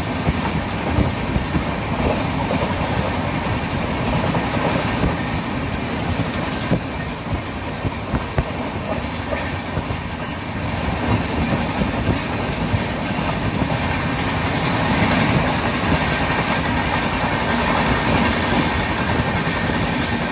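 Pallavan Express passenger train running along the track: a steady rumble and rattle of the coaches, with frequent sharp clicks of the wheels over rail joints.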